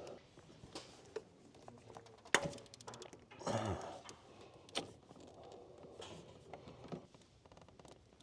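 Scattered metal clicks and clinks of hand tools working on a diesel engine's injector area, with a sharp knock a little over two seconds in and a brief louder clatter about half a second later.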